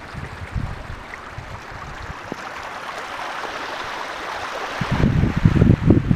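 Muddy rainwater runoff rushing in a shallow stream down a paved driveway, a steady splashing rush that grows a little as it comes closer. From about five seconds in, gusts of wind rumble on the microphone and become the loudest sound.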